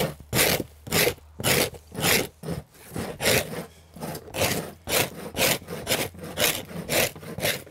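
Hand scrapers rasping over the inside of birch bark, cleaning off lichens and loose bark: a steady rhythm of strokes, about two a second.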